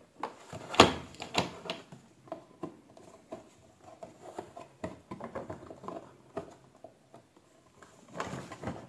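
The hard plastic seat of a kids' ride-on electric motorbike being pressed back onto the plastic body. Two sharp plastic knocks about a second in, then a run of lighter clicks and scraping as it is screwed down with a screwdriver.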